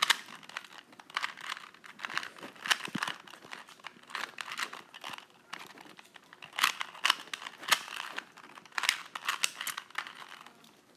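ShengShou 2x2x2 plastic speed cube being turned quickly during a solve: rapid runs of clicks and clacks from the layers turning, in bursts with short pauses between them.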